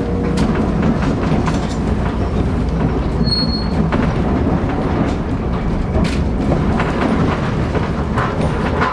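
Inside the Hankai Tramway Mo 161, an 88-year-old tram with nose-suspended (tsurikake) traction motors, running along the track: a steady rumble of motors, gears and wheels with occasional knocks. A brief high squeal, likely from the wheels, comes about three seconds in.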